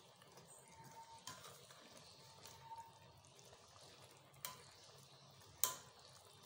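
Slotted spatula stirring chicken in a simmering milk gravy in a metal pot: faint wet stirring with a few light knocks of the spatula against the pot, the sharpest about five and a half seconds in.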